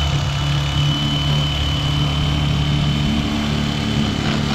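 Handheld electric fillet knife running steadily as its serrated blades cut a striped bass fillet away from the skin: a low motor hum with a thin high whine above it.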